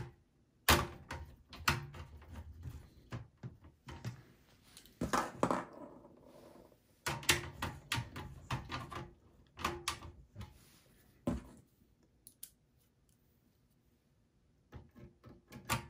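Scattered clicks, taps and rattles of a screwdriver and small metal screws handled against a steel PC chassis as the motherboard is screwed down. The clatter goes quiet for a couple of seconds near the end, then a few more clicks follow.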